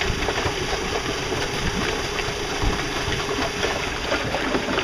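Water rushing and splashing in the wake of a small electric boat under way: a steady, unbroken rushing noise.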